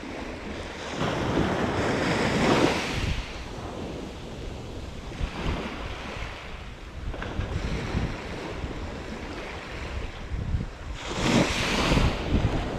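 Small waves breaking and washing up over a sandy beach, with wind buffeting the microphone. The surf swells louder twice: about a second in and again near the end.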